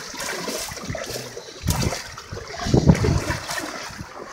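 Floodwater sloshing and splashing around legs wading through it, in uneven surges with the loudest slosh near the end.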